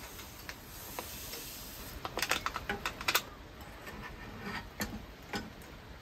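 A wooden spoon clicking and scraping against a stainless steel cup while cocoa is stirred in, in a quick run of clicks about two seconds in and a few more near the end, over a faint steady hiss.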